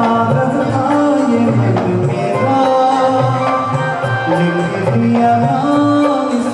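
A man singing into a handheld microphone over instrumental accompaniment with percussion, holding long sung notes over a repeating bass line.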